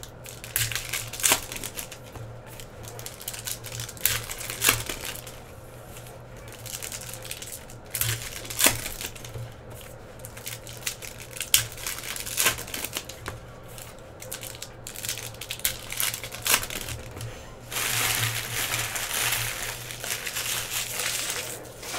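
Foil trading-card pack wrappers crinkling while baseball cards are handled and tapped square on a table, giving scattered sharp clicks and rustles. A longer stretch of steady rustling comes near the end.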